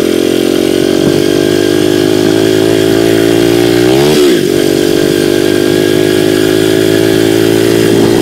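Dirt bike engine running steadily while being ridden slowly, revving up briefly about four seconds in and dropping back to a steady pitch.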